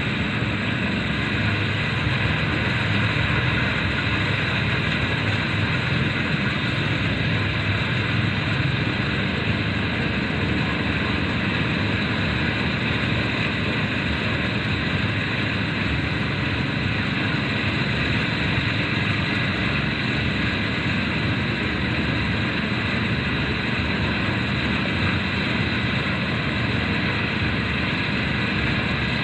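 Engine-driven rice thresher running steadily, a continuous even machine noise.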